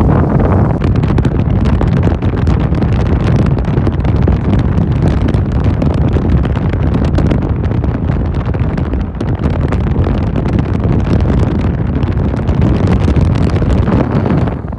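Wind buffeting the microphone: a loud, continuous low rumble with crackling.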